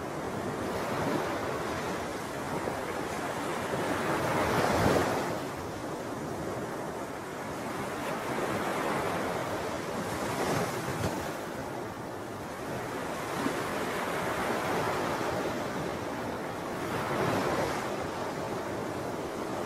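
Wind on the microphone with the wash of small waves at a shallow lagoon's shore, a rushing noise that swells and eases every few seconds, strongest about five seconds in.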